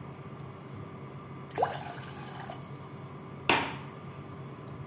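Two drops of water plopping into a pan of water, about two seconds apart, the second louder, over a steady low hum.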